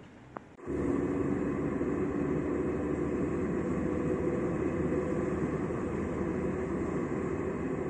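Steady road and engine noise of a moving car heard from inside the cabin, a low rumble with a constant hum. It starts abruptly about half a second in.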